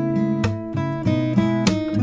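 Background music: acoustic guitar playing a run of plucked notes at a steady pace.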